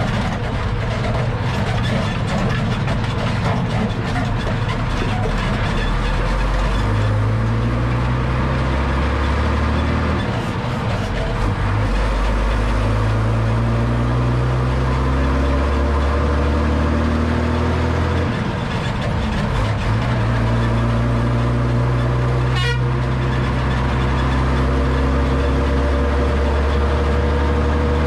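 Truck under way on the road, heard from under the chassis next to the spinning drive shaft: a continuous rumble of drivetrain and tyres with a low engine drone that shifts in pitch in steps several times.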